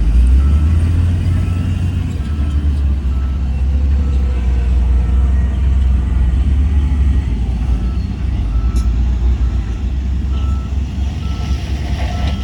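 Heavy diesel earthmoving machine running with a steady low rumble while its reversing alarm beeps at one pitch, about two beeps a second, pausing briefly about halfway through.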